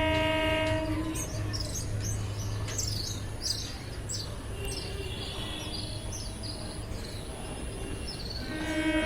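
Birds chirping in a quick run of short, falling calls over a steady low rumble. A long held tone, rich in harmonics, sounds at the start and again near the end.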